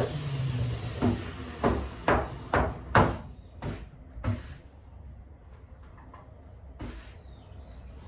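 A series of sharp knocks and clunks, about seven in quick succession roughly half a second apart, then one more near the end, like objects being handled and set down.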